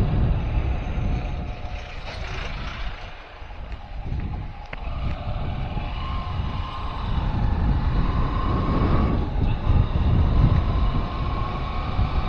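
Wind rushing over the microphone with vehicle engine and road noise while riding, easing briefly about three seconds in. A steady whine comes in about halfway through.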